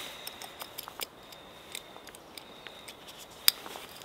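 Small clicks and light metallic clinks from handling a hand coffee grinder's parts, with one sharper click about three and a half seconds in.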